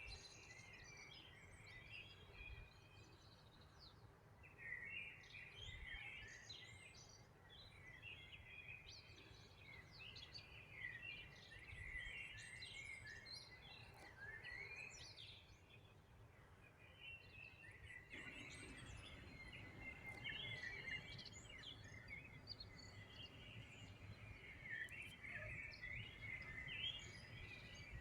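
Several songbirds chirping and trilling in a loose dawn-chorus-like mix, quiet, over a faint low background rumble.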